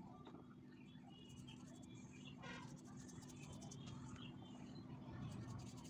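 Faint scratching of colour being rubbed onto paper in short runs of strokes, over a low steady hum.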